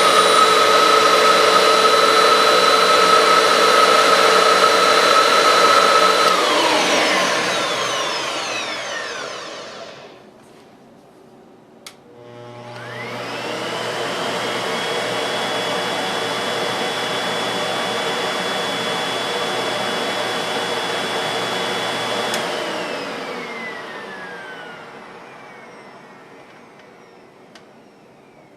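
Two vacuum cleaners are run one after the other for a noise comparison. The first is the louder one: its motor whines steadily for several seconds, is switched off, and its pitch falls as it coasts down. After a click, the quieter vacuum spins up with a rising whine, runs steadily for about ten seconds, then is switched off and winds down.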